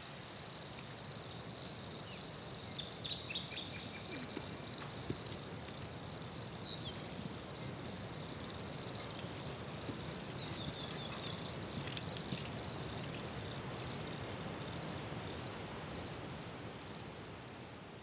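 Forest ambience: a steady high insect trill over an even low hiss, with scattered short chirping calls, several of them falling in pitch. It fades away near the end.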